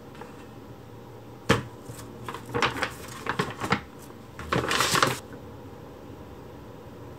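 Paper shopping bag rustling and crinkling as it is handled and opened around a boxed gift: a sharp crackle about a second and a half in, a run of short crinkles, then a longer rustle about five seconds in.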